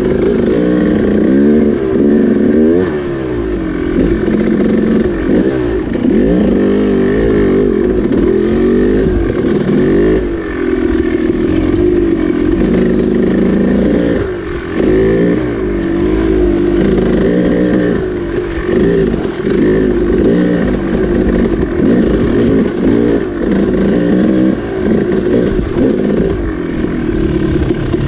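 Dirt bike engine revving up and down continuously while riding a trail, the pitch rising and falling with every blip of the throttle, with a brief drop in engine noise about two-thirds of the way through.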